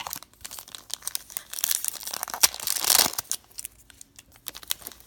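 Wrapper of a hockey card pack crinkling and tearing as hands struggle to open it: irregular crackling, loudest in the middle.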